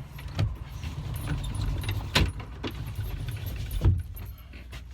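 Keys jangling and a few sharp clicks and knocks of something being handled, over a low steady rumble.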